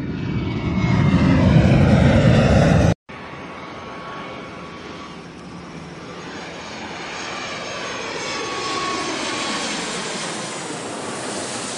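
Jet airliner flyover sound: loud rushing jet noise swells and then cuts off abruptly about three seconds in. After a brief gap, a quieter jet sound with a thin steady whine slowly builds and then eases off near the end.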